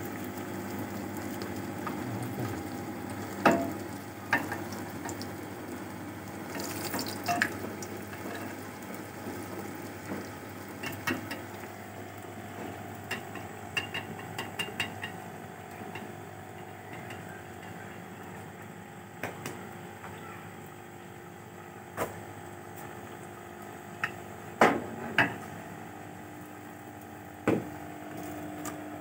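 Folded flatbread turnovers deep-frying in hot oil in a large aluminium pot, with a steady sizzle. Metal tongs and a slotted spoon clink sharply against the pot now and then, once about three seconds in and several times near the end.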